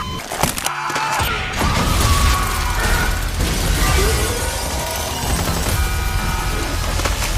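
Dark cinematic horror score with a heavy low rumble and booming, crashing impacts, the sharpest hits about a second in and just before the end.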